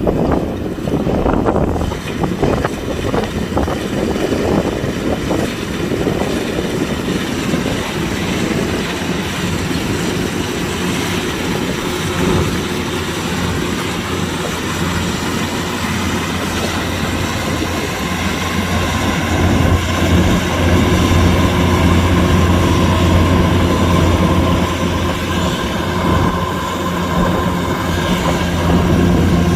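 Kubota DC-105X combine harvester's diesel engine and threshing machinery running steadily while harvesting rice, a continuous mechanical drone that grows louder about two-thirds of the way through.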